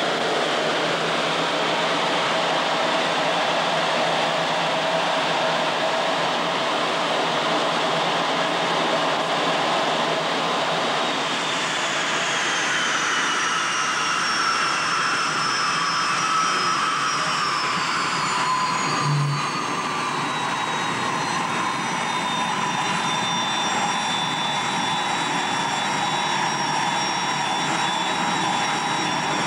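MiG-21 jet engine heard from inside the cockpit while rolling along the runway: a steady roar with high whining tones that fall in pitch from about a third of the way in, as the engine spools down.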